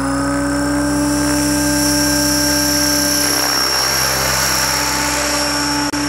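Align T-REX 600 ESP electric RC helicopter, its motor whining and rotor blades whirring as it lifts off and climbs away. The pitch edges up slightly in the first couple of seconds, then holds steady.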